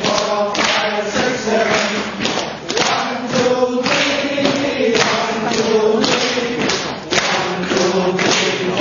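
Music: voices singing together over a steady percussive beat.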